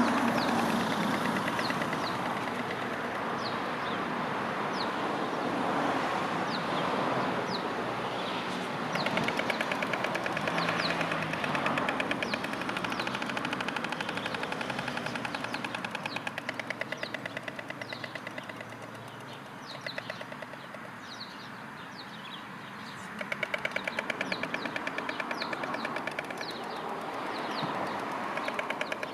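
A pair of white storks clattering their bills in two long bursts of very rapid, even strokes, the greeting display of a mated pair at the nest. Road traffic noise runs underneath, loudest at the start, and a small bird chirps repeatedly.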